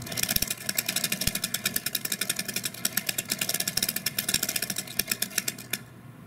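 Homemade split-flap display clattering as its flaps flip over in a rapid run of clicks while it is turned by hand. The clicking stops near the end, as the flaps settle on the final image.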